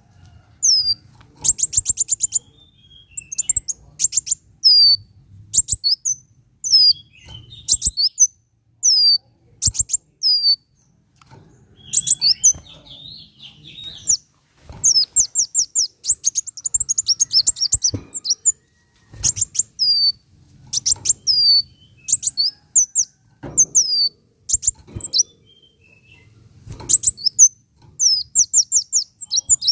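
Kolibri wulung sunbird singing a loud, high song of fast ticking trills and short down-slurred whistles, delivered in repeated bursts with brief pauses.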